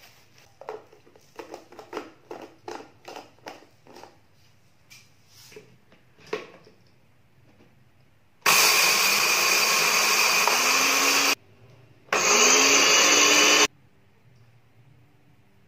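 Miyako BL-152 blender's dry-mill cup grinding coriander seeds: the motor runs in two bursts, about three seconds and then a second and a half, with a short pause between, its pitch rising as it spins up. Before that, a run of light clicks and rattles.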